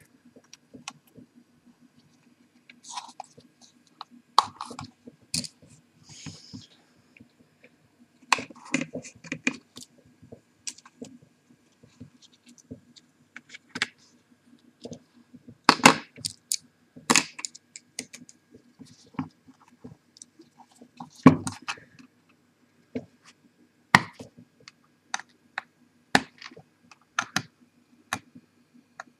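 Irregular clicks, taps and light knocks of small parts being handled: a clear plastic box and the metal case of a laptop hard drive being turned and set down, over a faint steady low hum.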